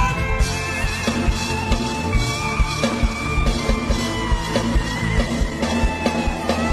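Instrumental gospel band music with a steady beat, a bass line and held melody notes, and no singing.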